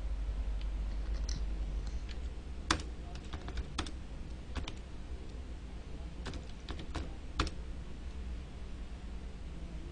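Keystrokes on a computer keyboard: about a dozen separate taps starting a few seconds in and stopping about three-quarters of the way through, over a steady low hum.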